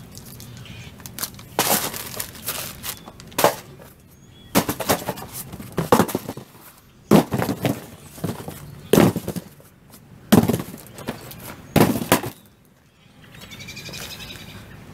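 Cardboard shipping boxes being dropped one after another onto a concrete porch: about eight sharp thuds, roughly one every second and a half.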